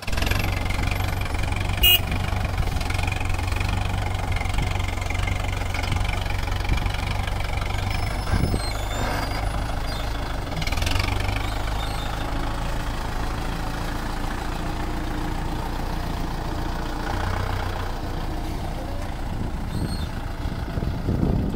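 Kubota MU4501 tractor's four-cylinder diesel engine running steadily under load as it pulls a heavily loaded trolley, with one sharp click about two seconds in.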